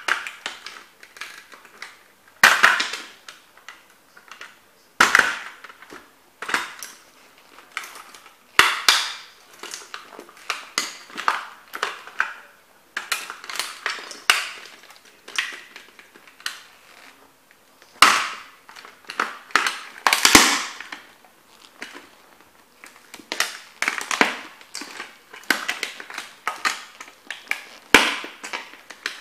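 Heavy lace-up boots stomping on and grinding a toy model Corvette against a board: a string of sharp cracks and crunches as the car breaks up. The heaviest stomps come about two and a half, five, eighteen and twenty seconds in.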